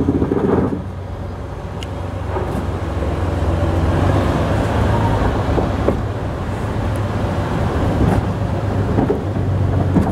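Engine of a moving vehicle running steadily, heard from on board, a low steady hum under continuous running noise.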